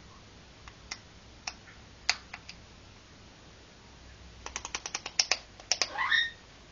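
A few scattered sharp clicks, then a quick run of clicks, about ten in a second, then a short rising parrot call near the end.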